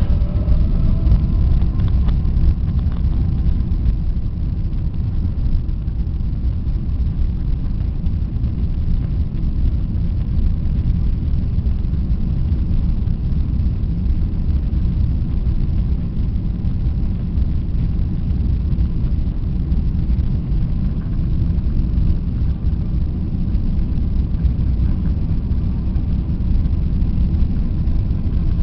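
Inside an airliner's cabin as it rolls along the ground: a steady, loud, deep rumble from the jet engines and wheels, with a faint engine whine that fades in the first couple of seconds.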